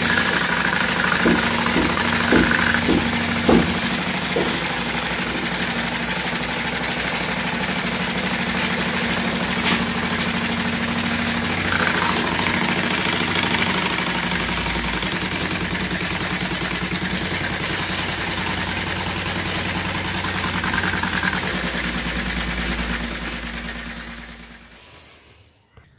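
Homemade single-cylinder steam engine running on steam: a steady hiss of escaping steam over a fast, even running rhythm, with a few sharp knocks in the first few seconds. The sound fades out near the end.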